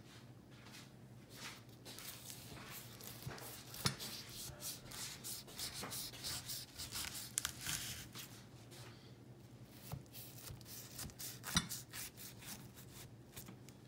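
Kitchen knife cutting through the crunchy, flaky top crust of a baked chicken pot pie: irregular crackling and scraping, busiest in the middle, with a few sharper clicks.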